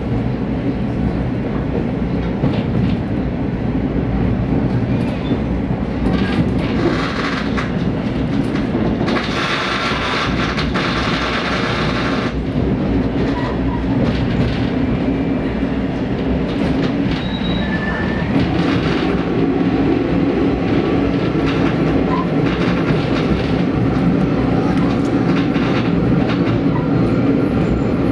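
Diesel railcar running on the line, with steady engine and wheel-on-rail noise. A harsher high hiss comes in about nine seconds in and lasts about three seconds.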